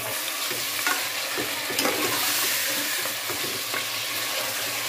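Chunks of raw beef sizzling in hot oil with onions in an aluminium pressure cooker, while a steel ladle stirs and scrapes them round the pot. The sizzle is steady, with a few sharp clicks of the ladle against the metal.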